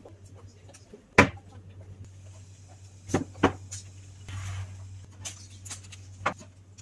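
A few sharp knocks and clatters of household things being handled and set down, the loudest about a second in and a pair close together a little past three seconds, with a brief soft rustle in between.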